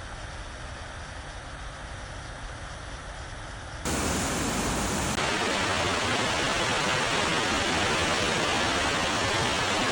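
A waterfall rushing in a steady roar of falling water. About four seconds in it becomes abruptly louder and brighter, then stays steady.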